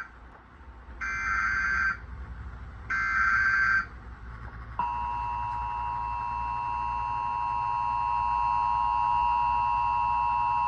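Emergency Alert System broadcast through a TV speaker: two short, buzzy SAME digital data bursts, each about a second long and a second apart. About five seconds in, the steady two-tone EAS attention signal starts and holds.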